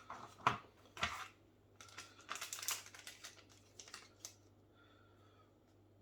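Plastic-wrapped snack packets being handled, giving short irregular crinkles and clicks that die away after about four seconds.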